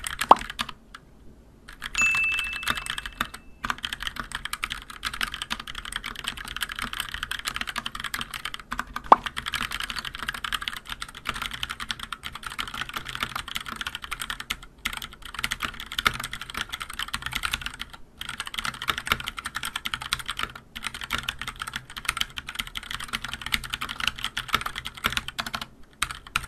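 Keychron K6 mechanical keyboard with Gateron Red linear switches and ABS keycaps being typed on quickly and continuously, a dense run of key clacks broken by a few brief pauses. It has some hollow ringing inside the keycaps but little stabilizer-wire rattle, as the stabilizers are lightly lubed. A short high tone sounds about two seconds in, and one key strike about nine seconds in is louder than the rest.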